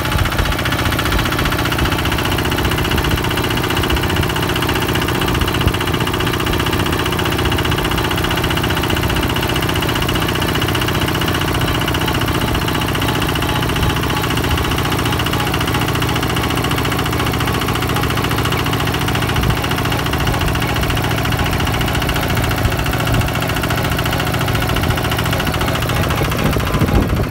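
Kubota two-wheel walking tractor's single-cylinder diesel engine running steadily at an even speed while it pulls a trailer, heard up close from the trailer behind the handlebars.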